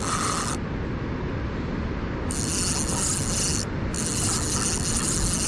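Carp reel ratcheting in three bursts as a hooked carp pulls line off the spool, the sign of a fish making a run.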